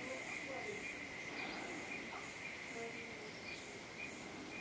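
Rainforest insects making a steady high drone, with a fainter insect chirping pulsing about twice a second above it and a few faint scattered calls.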